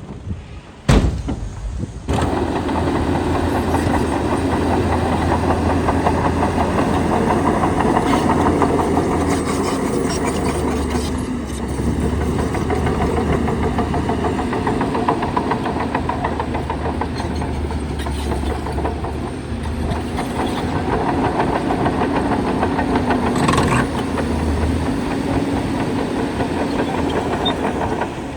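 Heavy diesel engine of earthmoving machinery running steadily, with a deep, even rumble. A single sharp knock sounds about a second in, and the engine sound comes in abruptly about two seconds in.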